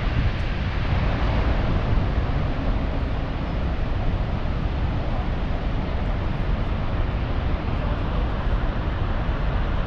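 Steady roar of Niagara's Horseshoe Falls: an even rushing noise with a heavy low rumble.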